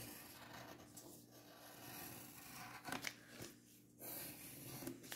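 Faint, intermittent scratching of a pencil drawing on paper.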